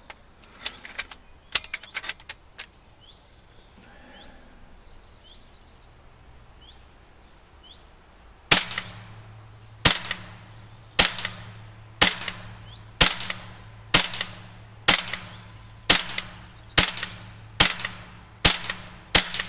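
Hatsan BullMaster semi-automatic PCP air rifle in .177 (4.5 mm) firing about a dozen shots, roughly one a second, each a sharp crack, emptying the magazine. In the first few seconds, a handful of clicks as the action is handled after a jam.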